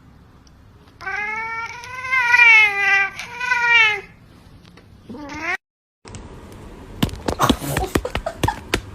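A cat yowling: one long drawn-out call that wavers up and down, with a brief break, starting about a second in, then a short rising meow. After a cut, a run of quick clicks and knocks fills the last couple of seconds.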